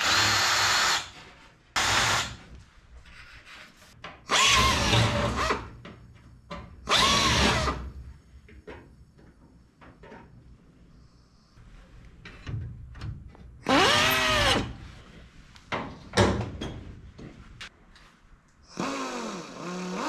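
Power drill drilling holes in aluminium aircraft structure, run in several short bursts of about a second each, its pitch rising as it spins up and falling as it stops.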